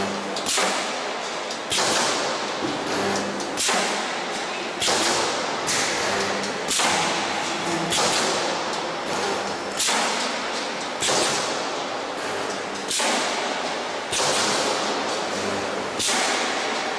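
Multi-head pneumatic spot welder cycling on radiator panels, about once a second. Each stroke is a sudden hit followed by a fading hiss as the air-driven electrode heads strike and vent.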